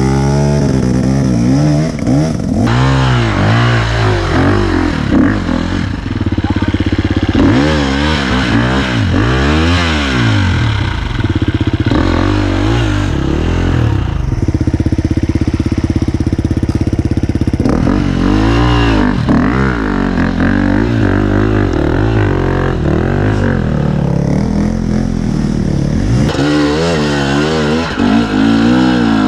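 Two-stroke enduro dirt bike engines revving up and down in repeated bursts, settling to a steadier idle for a few seconds at a time, as the bikes are ridden and struggled up a steep muddy rut.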